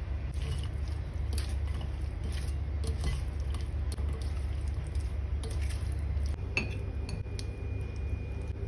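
A utensil clicking and clinking against a mixing bowl as a dressed pork and onion salad is tossed and stirred, over a steady low rumble.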